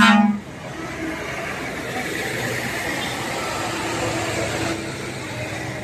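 A loud vehicle horn blast cuts off within the first half second. After it comes the steady running of engines and traffic.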